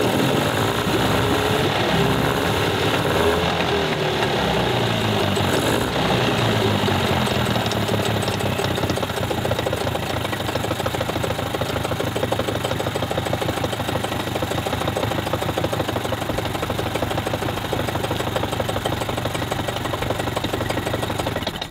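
Mercury 25 hp two-stroke outboard running on test with its freshly rebuilt carburettor. It is revved up and down over the first several seconds, then settles into a steady run.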